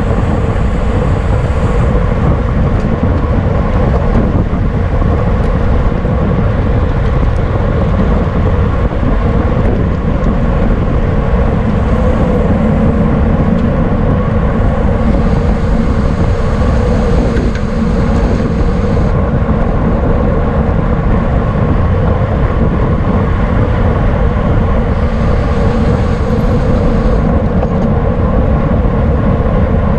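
Loud, steady wind noise buffeting the microphone of a camera carried on a racing bicycle at speed, with a few brief stretches of added high hiss.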